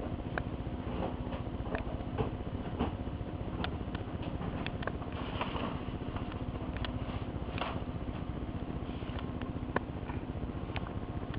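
Printer running: a steady hum with irregular sharp clicks and ticks, and soft paper rustles about five and a half and seven and a half seconds in.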